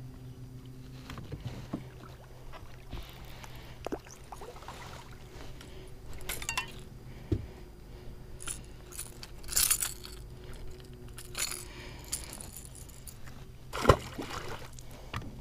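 A bass being handled at the side of a boat: short clicks and rattles of the crankbait and its treble hooks as the fish thrashes and is unhooked. About 14 seconds in, a sharp splash as the fish is dropped back into the water. A low steady hum runs underneath.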